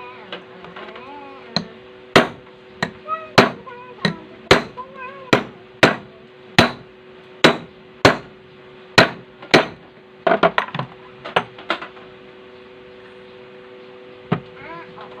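Hammer striking metal: about a dozen sharp blows, a little under a second apart, then a quicker run of lighter taps and one last tap near the end.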